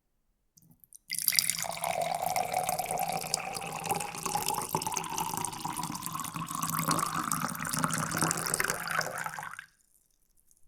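Water poured in a steady stream into a glass, starting about a second in and stopping sharply near the end. The pouring tone rises slowly in pitch as the glass fills.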